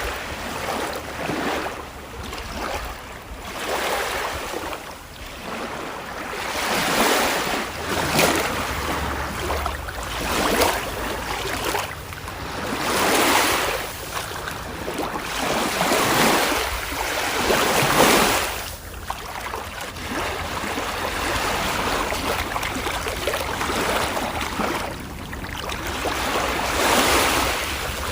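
Ocean surf: waves breaking and washing in and out, a rushing hiss that swells and fades every few seconds.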